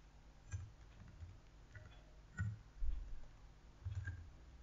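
Computer keyboard being typed on slowly: about half a dozen separate keystrokes, each a faint click with a dull thump.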